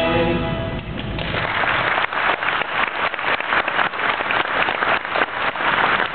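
Audience applauding, starting about a second in as the last notes of a children's song die away.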